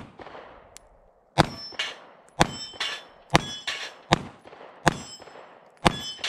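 Taurus GX4 9mm micro pistol firing a string of shots about half a second apart, with the clang of steel knock-down plates ringing as they are hit.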